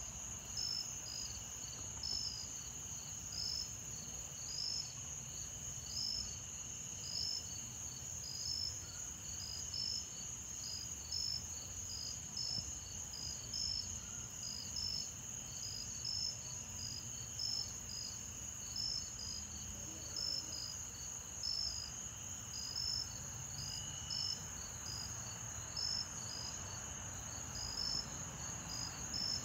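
Insects chirping: a steady high trill with short chirps repeating roughly once a second, over a faint low rumble.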